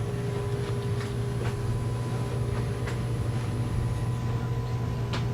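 Steady low motor hum aboard a boat, with a few faint clicks over it.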